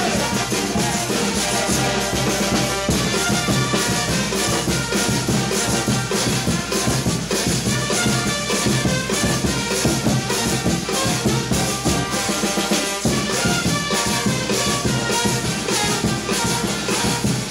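Brass band playing lively dance music, horns over drums, without a break.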